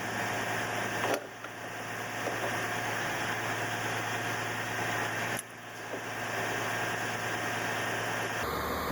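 A steady machine hum with a low drone and a few constant tones, dropping out briefly about a second in and again just past five seconds.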